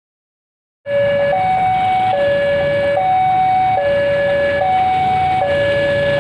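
Railway level-crossing warning alarm sounding, a lower and a higher electronic tone alternating, each held just under a second, over the rumble of waiting traffic; it signals that a train is approaching. It starts abruptly about a second in.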